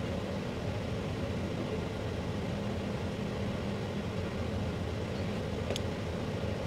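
A steady low machine hum of room background noise, with one faint tick near the end.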